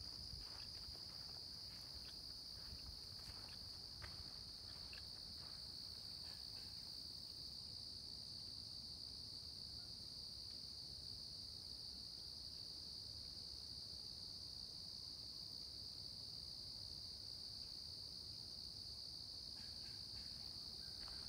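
Chorus of insects in the woods: a steady, unbroken high-pitched drone with a fainter, higher layer above it. A few faint ticks or snaps in the first few seconds.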